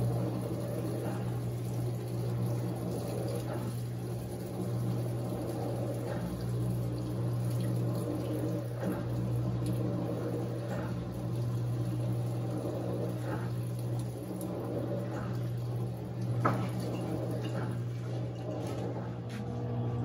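Panasonic NA-F140B6 Cyclone washing machine running its eco-rinse: water jets spraying and splashing onto the laundry as the basket turns, over a steady motor hum that swells and eases every couple of seconds.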